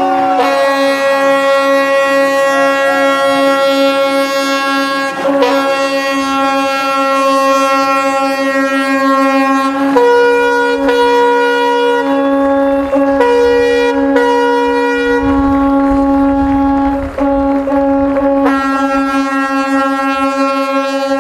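Ships' horns blowing long, continuous blasts in salute to a vessel being launched. One steady low horn sounds throughout, and a second, higher horn cuts in and out about ten to fifteen seconds in. A low rumble comes in around fifteen seconds in.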